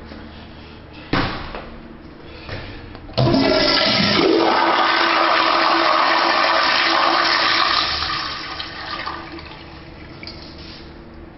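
Commercial toilet flushing: a couple of knocks, then about three seconds in a sudden loud rush of water that runs for about five seconds and tapers away.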